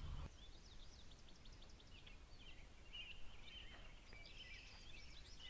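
Faint songbird chirps and trills over low, quiet background noise.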